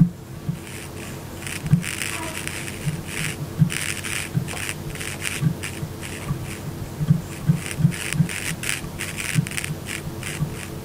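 Volume potentiometer of an xDuoo TA-01 tube headphone amplifier crackling and scratching as its knob is turned, heard through headphones: irregular crackles over a steady low hum.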